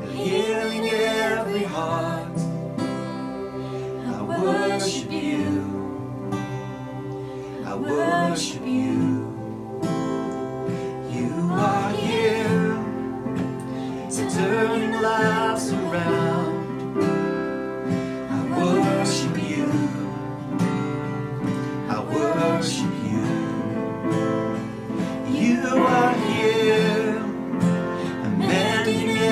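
Slow contemporary worship song: a man singing to his own strummed acoustic guitar, accompanied on keyboard.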